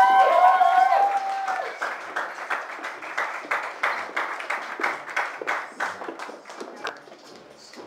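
Audience applauding, the clapping fading away over several seconds. Voices hold a few long high notes over the first second and a half.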